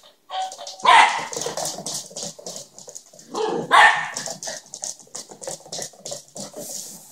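Small dog barking in sharp outbursts, loudest about a second in and again near four seconds in, with quicker, quieter yaps between.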